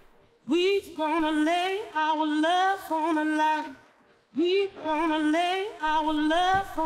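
Lead singing voice isolated from a full song by LALAL.AI AI stem separation on its mild setting: two sung phrases with a short break about four seconds in. Faint leftover percussion and background bleed from the original mix sits underneath the voice.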